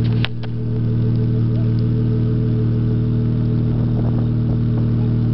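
Dodge Charger's 3.6L Pentastar V6 idling steadily, heard close to the tailpipe through a Flowmaster Super 44 muffler with the resonators deleted. A short click comes just after the start.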